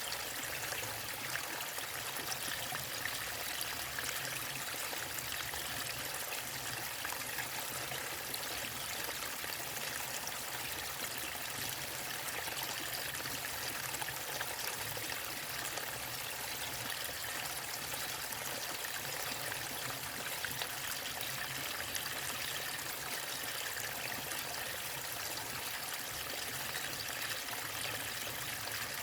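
Water running steadily over a waterfall and along a stream, an even rushing with trickling.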